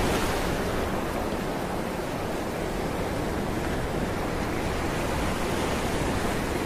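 Steady underwater rushing noise of moving water.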